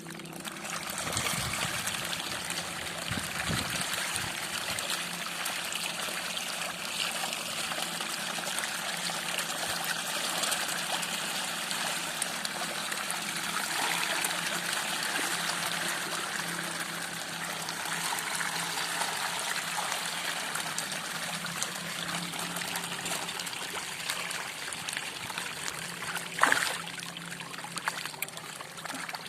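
Steady trickling, splashing water, with one short sharp knock near the end.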